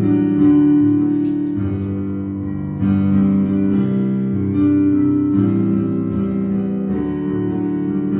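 Instrumental music on a plucked string instrument: slow, ringing chords, with a new chord struck every second or two.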